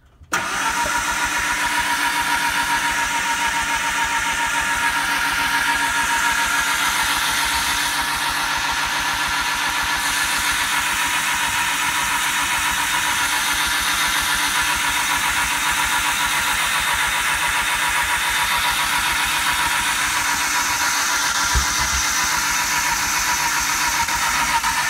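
1997 Ford Ranger pickup engine firing up and then idling steadily.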